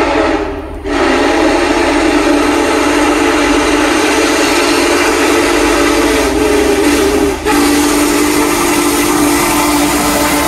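Union Pacific 4014 Big Boy steam locomotive blowing its chime whistle in long blasts as it nears a grade crossing: the crossing warning. The blasts break briefly about a second in and again around seven seconds. The low rumble of the approaching locomotive runs underneath.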